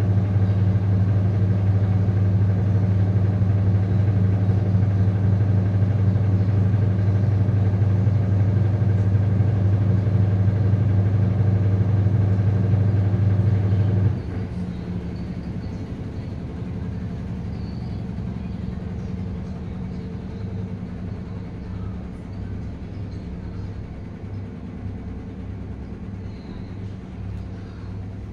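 Sharp washing machine running with a loud, steady hum that cuts off suddenly about halfway through. A quieter pulsing rumble follows and slowly fades.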